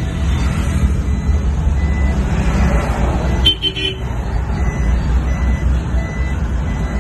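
Vehicle engine and road noise heard from inside the cabin of a moving car, a steady low rumble. A short high beep about halfway through.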